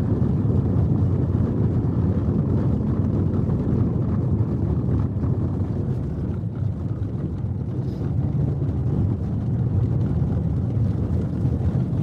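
Steady low rumble of a moving car heard from inside the cabin: engine and tyres running on a snow-covered road.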